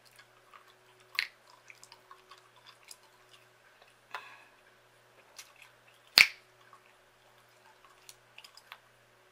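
Gum chewing close to the microphone: irregular wet smacks and clicks, with sharp gum snaps about a second in and about four seconds in, and the loudest snap about six seconds in.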